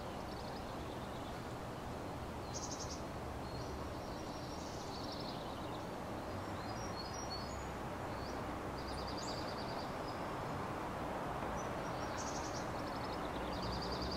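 Small songbirds giving short, high, rapid chirping trills several times over a steady background rush of outdoor ambience.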